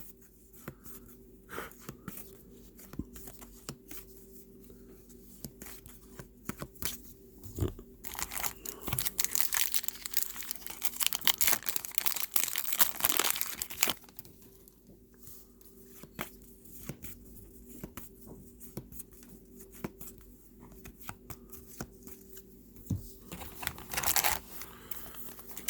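Trading card pack wrappers being torn open and crinkled, with light clicks of cards being handled. The loudest tearing and crinkling comes from about eight to fourteen seconds in, with a shorter crinkle near the end, over a faint steady hum.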